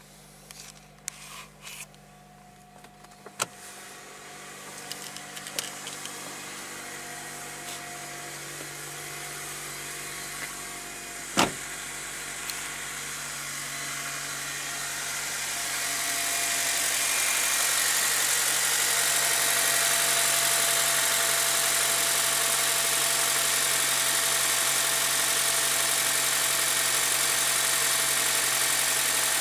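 Honda Civic Type R EP3's 2.0-litre four-cylinder K20 engine idling steadily while warming up. There are a few light clicks early on and a sharp tap about eleven seconds in. The engine sound grows louder and gains a hiss over the first half, then holds steady.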